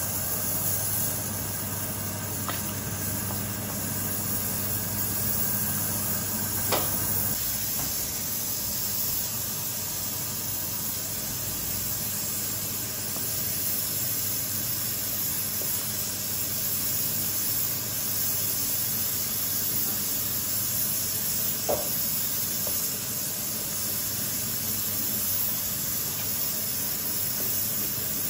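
Pressure cooker hissing steadily as steam escapes from its valve while it cooks under pressure, with a few light knocks near 2.5, 7 and 22 s.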